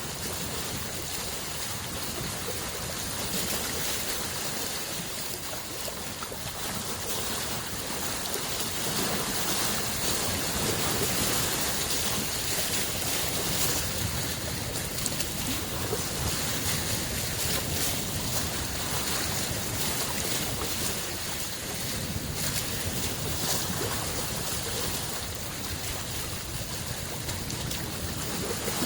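Small lake waves lapping and washing against the shore: a continuous hiss with slow swells in level and a fine crackle of splashes, with wind buffeting the microphone.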